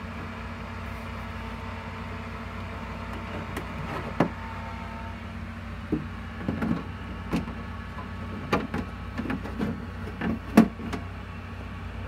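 Chicken eggs being handled and set into a plastic incubator egg tray: irregular light knocks and clicks, sparse at first and more frequent in the second half, over a steady low hum.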